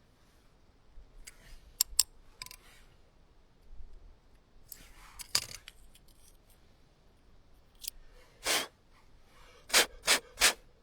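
Small metallic clicks and short scrapes of hand work on a disc brake caliper while worn brake pads are changed. There is a pair of sharp clicks about two seconds in, scrapes midway, and three quick sharp clicks near the end.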